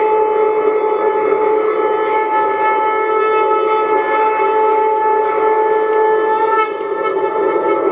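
Conch shell (shankh) blown in one long, steady horn-like note that wavers briefly near the end.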